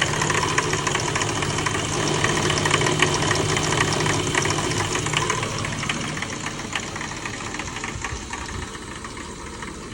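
BMW E36 M3 straight-six engine idling with a rapid, repeated ticking knock: the clanking/knocking noise the owner is asking for help with. The sound grows quieter over the last few seconds.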